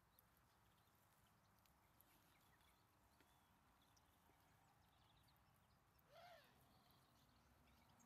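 Near silence: faint outdoor hiss with a few faint small-bird chirps and soft ticks, and one short, louder animal call about six seconds in.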